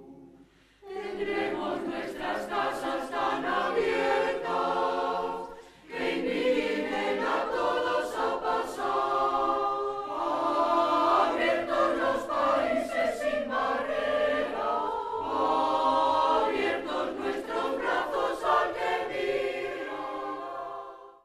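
A choir singing, starting about a second in, with a short pause near six seconds.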